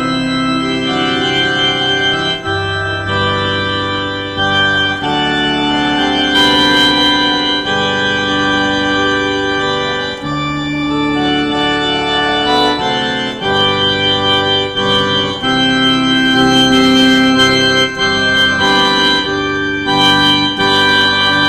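Organ playing slow, held chords that change every couple of seconds.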